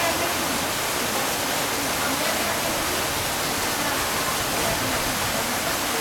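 Water running steadily down a concrete pool slide and splashing into the pool below, a constant rushing hiss.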